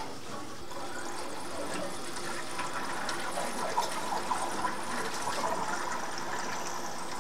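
Water running into a water heater tank as the supply valve is reopened after an anode rod replacement, a steady rushing hiss as the tank refills.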